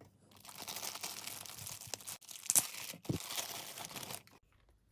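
Plastic packaging crinkling and tearing as it is handled and pulled open, with a sharp crackle about two and a half seconds in.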